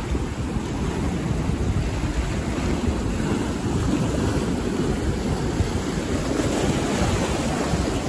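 Ocean waves washing onto the shore in a continuous, uneven wash, with wind rumbling on the microphone.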